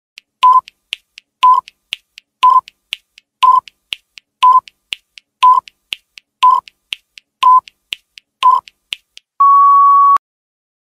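Countdown timer sound effect: a short electronic beep every second, nine in all, with ticking clicks between them, ending in one longer, slightly higher beep as the count reaches zero.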